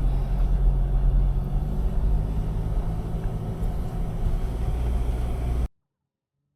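A vehicle's engine and road noise as it drives, a steady low rumble that cuts off abruptly near the end.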